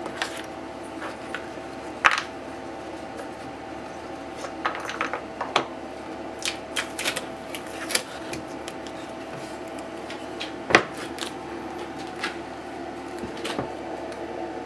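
Scattered clicks, taps and knocks of things being handled over a steady hum, with the loudest knocks about two seconds in and just before eleven seconds in.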